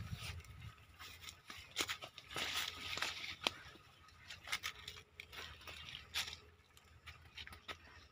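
Leaves and stems of leafy field plants rustling and crackling as a man and a goat push through them, with footsteps on the dry ground; a series of short, irregular crackles, thickest about two to three seconds in and again around five to six seconds.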